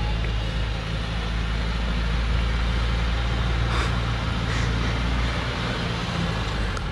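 Diesel engine of an old Thaco Forland log truck running low and steady as the loaded truck creeps down a steep dirt slope, with a short hiss about four seconds in.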